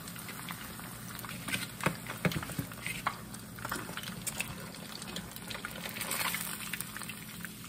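Battered tilapia fillets frying in a skillet of hot oil: a steady sizzle and bubbling, with many short sharp crackles scattered through it.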